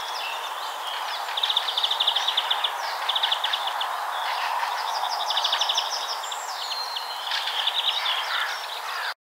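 Songbirds singing, a run of short, fast trilled phrases one after another over a steady background hiss. The sound cuts off abruptly near the end.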